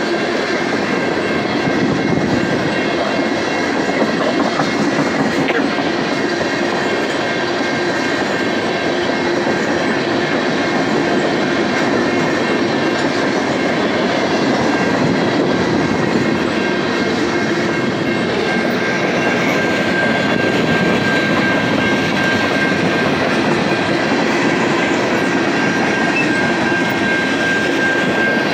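Freight train cars, tank cars and covered hoppers, rolling steadily past with a continuous rumble and clatter of wheels on rail. A thin, steady high-pitched squeal runs through it and grows stronger about two-thirds of the way through.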